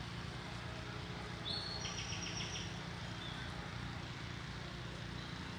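Short bird call about a second and a half in: two brief high whistled notes and a quick run of about five ticks, over a steady low background rumble.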